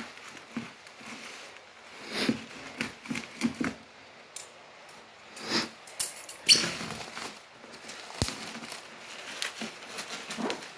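Scattered rustling, scraping and light knocks of hands handling packaging and parts while unboxing, with a sharp knock about eight seconds in.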